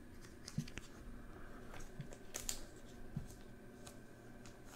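Faint, scattered ticks and soft rustles of a Donruss Optic trading card being handled and turned over in the fingers.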